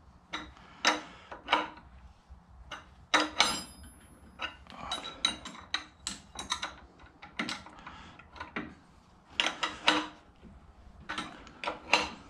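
Ratchet and wrench clicking and clinking on a power steering pulley installer tool as its nut is turned by hand to press the pulley onto the pump shaft. Irregular short metallic clicks throughout, one ringing clink a little after three seconds in.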